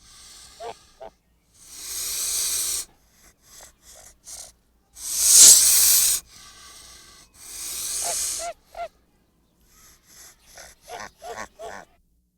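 Goose hissing: three long breathy hisses, with short throaty calls between them and a quick run of short calls near the end.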